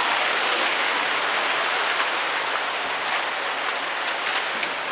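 Rain falling steadily: a dense hiss of drops with scattered sharper taps, more of them in the second half.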